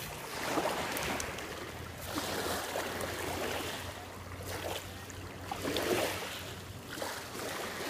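Small lake waves lapping at the water's edge, swelling and easing every second or two, over a steady low rumble.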